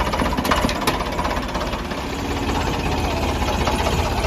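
Ford 3610 tractor's diesel engine running steadily, with two sharp clicks within the first second.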